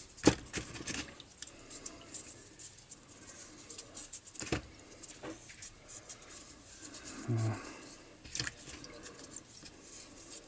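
A chainsaw oil pump being washed by hand in a small plastic tub of petrol: the liquid swishes and the part and tub give small scattered clicks and knocks, sharpest just after the start and again about four and a half seconds in. A short low hum comes about seven seconds in.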